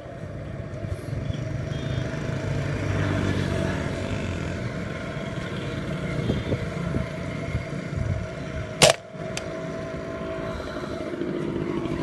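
A single sharp shot from a scoped rifle about nine seconds in, followed half a second later by a fainter click. A steady motor-vehicle engine drone runs underneath.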